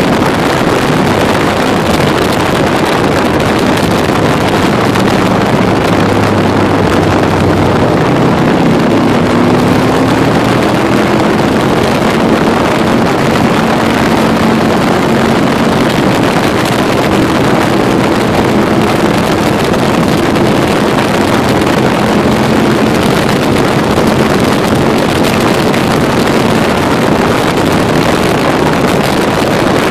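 Can-Am Spyder three-wheeled motorcycle cruising at road speed: steady heavy wind rush on the microphone, with the engine's hum faintly underneath, its pitch drifting slightly up and down.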